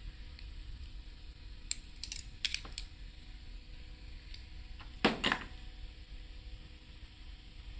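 A few light clicks, then a louder double clack about five seconds in: small hard objects knocking together.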